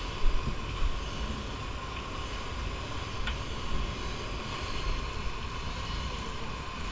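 Steady rain falling, with low wind rumble on the microphone and a few faint ticks.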